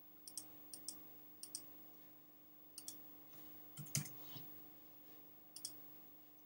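Faint clicking of a computer mouse and keyboard: about six short clicks, most in quick pairs, the loudest with a dull knock about four seconds in, over a faint steady hum.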